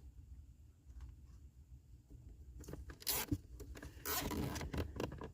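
A plastic zip tie being pulled tight through its ratchet head: a short rasp about three seconds in, then a longer one about four seconds in.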